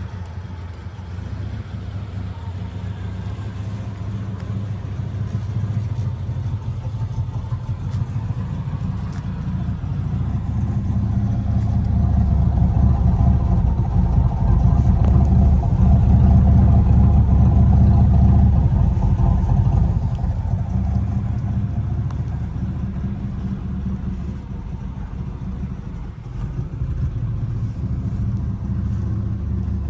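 1984 Buick Grand National's turbocharged 3.8-litre V6 idling steadily. It grows louder in the middle, where the tailpipe is close.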